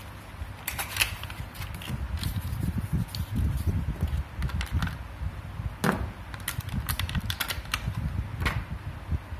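Plastic and cardboard packaging being handled: irregular clicks and crinkles from a clear plastic tray and a cardboard box, over a steady low rumble.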